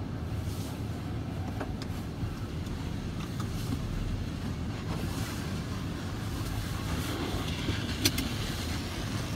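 Automatic car wash heard from inside the car's cabin: soapy cloth strips scrubbing across the windshield over a steady low rumble. A single sharp click about eight seconds in.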